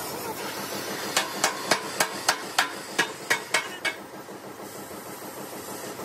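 A hammer striking steel plate about ten times, three to four ringing blows a second, then stopping; a gas cutting torch hisses steadily under and after the blows.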